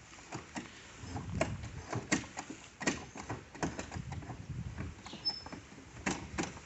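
Irregular light clicks and knocks, a few a second, of tools and metal parts being handled during work on a go-kart engine.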